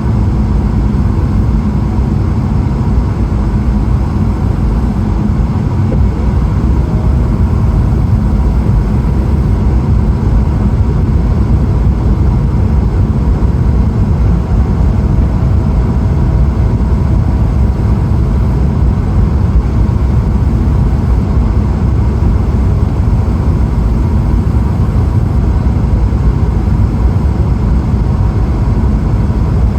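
Cabin noise inside a Boeing 777-300ER in flight: a steady, loud rush of airflow and the drone of its GE90 engines, with faint steady tones above it.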